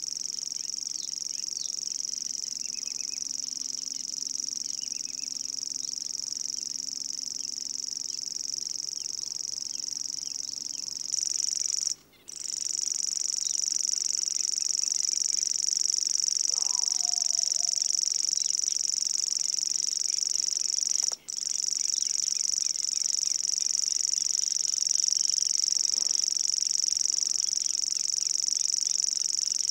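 Savi's warbler reeling: a long, steady, high buzzing trill that carries on without a break in rhythm. It grows louder about a third of the way in and stops briefly twice.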